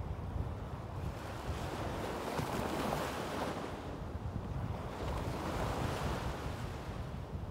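Small waves breaking and washing up a sandy beach, the surf swelling and fading twice, with a low wind rumble on the microphone.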